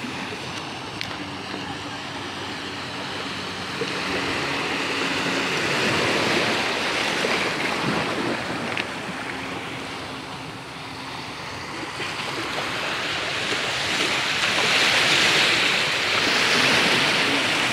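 Sea waves washing and breaking against a rocky shore, a steady rush that swells louder twice, about five seconds in and again near the end.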